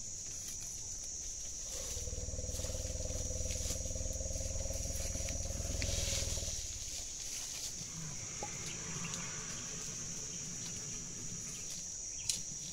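A wild Asian elephant giving a low, steady rumble for about five seconds, starting about two seconds in, over a constant high hiss.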